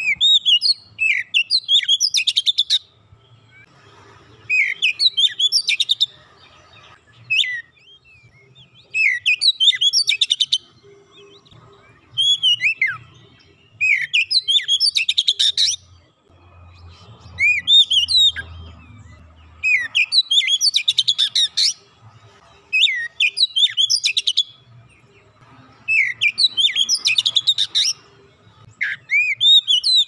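Oriental magpie-robin (kacer) singing loudly: about nine song phrases a few seconds apart, each made of clear whistled glides that run into a fast rattling trill.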